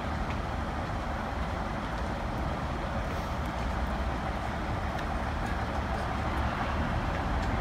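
ScotRail Class 156 Sprinter diesel multiple unit standing at the platform with its diesel engines idling: a steady low rumble with an even hum.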